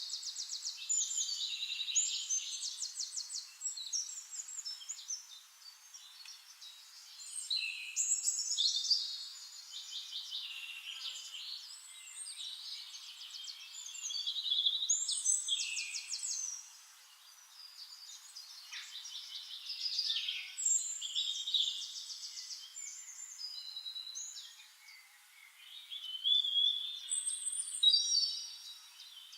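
Songbirds singing: several overlapping high songs made of fast trills and sliding whistled notes, swelling in phrases every few seconds.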